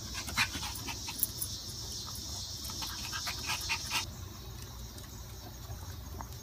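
Insects chirring steadily until about four seconds in, when the chirring cuts off. Over it come scattered light clicks and snuffles as a small dog mouths and licks at a glass beer bottle.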